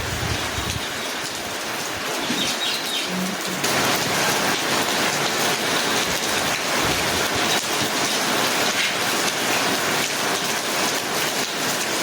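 Steady rain falling, an even hiss of drops, which steps up louder about three and a half seconds in.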